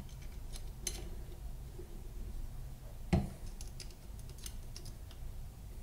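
Light metallic clicks and taps of small machine parts, a threaded block and screws, being handled and fitted onto an aluminium bar by hand, with one sharper knock about three seconds in.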